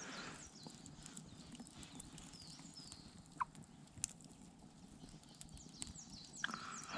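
A plastic squeeze bottle of ketchup being squeezed onto bread rolls, with quiet squelches and squeaks. Faint campfire crackles and a few short high chirps run underneath.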